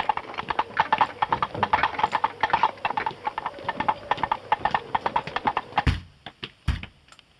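Footsteps of several people walking on a concrete path: a quick, irregular clip-clop of hard soles that stops about six seconds in, followed by a couple of separate knocks.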